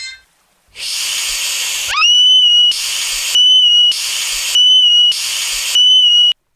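Cartoon sound effect: a long hiss, then a loud steady whistle alternating with hisses, four whistles in all at an even pace, cutting off suddenly near the end.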